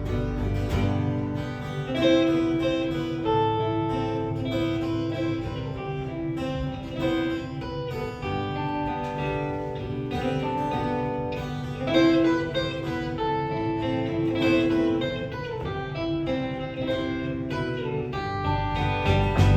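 Live band playing an instrumental guitar passage between sung verses: a picked guitar melody over strummed guitar. The low bass drops away about a second in and comes back near the end.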